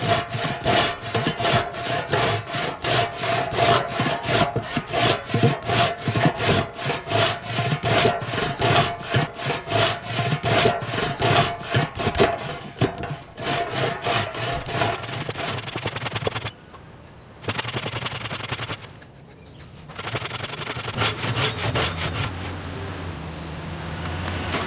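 Large Japanese maebiki (whaleback rip saw), freshly restored and sharpened, ripping through a wooden beam with rapid, even rasping strokes. The strokes break off about two-thirds of the way through, come back in a short burst, then give way to a steadier rasp near the end.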